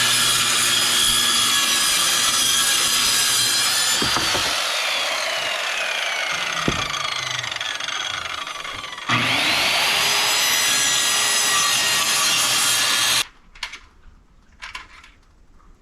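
Circular saw (Skilsaw) cutting through wood. The first cut runs about nine seconds, its motor whine sagging lower in pitch under load. After a short release near the nine-second mark, the saw spins back up for about four more seconds of cutting, then stops.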